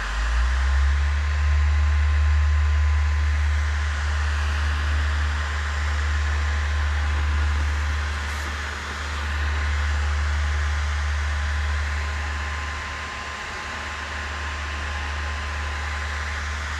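Steinel heat gun running steadily, its fan blowing with a steady hiss and a faint high hum. A deep low rumble sits underneath, loudest in the first half.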